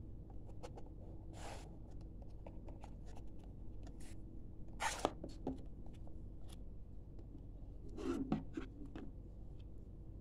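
Handling noise from a cardboard phone box and a paper leaflet being moved about on a wooden table: light rustles, scrapes and small taps over a faint steady low hum. The loudest rustles come about five seconds in and again about eight seconds in.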